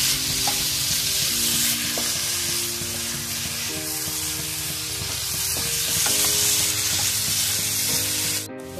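Squid roast sizzling in a frying pan while a spatula stirs and scrapes through the thick masala, with faint clicks of the spatula against the pan. The sizzle drops away shortly before the end.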